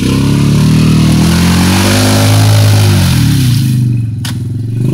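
Quad bike (ATV) engine revving hard while stuck in deep mud, its pitch climbing for about two seconds, holding, then dropping back, with a rushing noise of spinning tyres and flung mud over it. A single sharp knock comes near the end.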